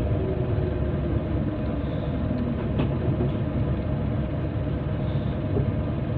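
Cabin sound of a Scania K94IB coach on the move: its rear-mounted nine-litre five-cylinder diesel and road noise make a steady low rumble. A single light click or rattle from the bodywork comes about three seconds in, typical of this aging coach rattling over bumps.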